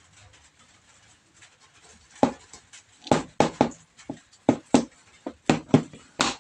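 A series of about ten short, sharp clicks, several in quick pairs, starting about two seconds in. They come from a hand crimping tool being worked on an RJ45 connector on a LAN cable.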